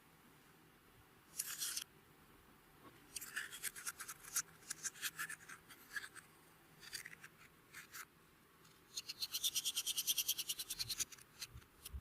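Clear slime being worked by hand, giving off rapid crackling clicks in several separate bursts, with the longest and densest burst near the end.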